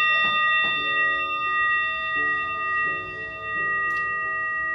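Upright singing bowl ringing after a strike, several steady overtones sustaining and slowly fading. A soft melody of changing lower notes plays underneath.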